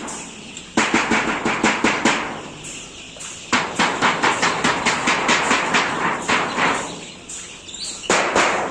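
Rapid sharp tapping, about five to six knocks a second, in three runs with short pauses between.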